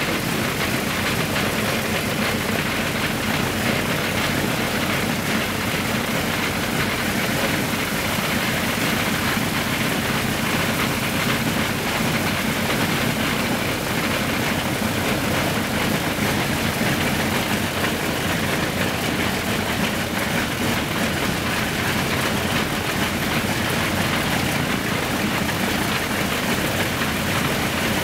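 Ilyushin Il-14's Shvetsov ASh-82T radial piston engine running steadily at a constant speed on a ground run-up, propeller turning.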